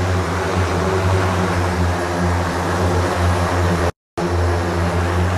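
The Hexa one-seat electric multirotor's 18 propellers running steadily in flight: a loud, deep hum with several steady tones above it. It cuts out for a moment about four seconds in.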